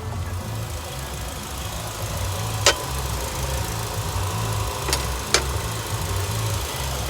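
Renault Latitude engine idling steadily, running again after its replacement engine control unit was cloned. Three sharp clicks stand out over the idle, one a little before the middle and two close together about two-thirds of the way through.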